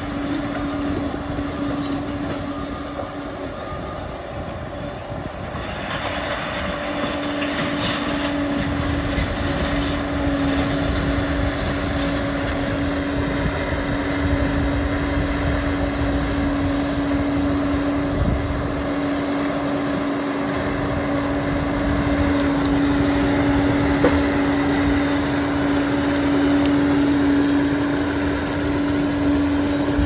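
Liebherr PR 746 crawler bulldozer running, its engine rumble carrying a constant whine, easing off slightly a few seconds in and then working steadily harder.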